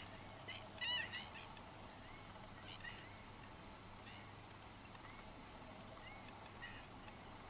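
Wading birds calling: short nasal notes in a loose series, loudest in a quick cluster about a second in, then single calls every second or so.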